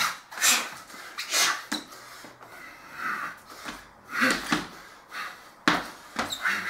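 A man's forceful breathing in short hissing bursts, about one a second and irregular, exhaled in time with kung fu movements. A sharp sudden sound a little before six seconds in.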